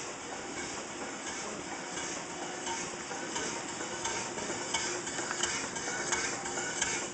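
Small vertical bottle-frame stationary steam engine (3-inch bore, 4-inch stroke) running, with a steady hiss and a quick, even ticking from its moving parts that grows sharper in the second half.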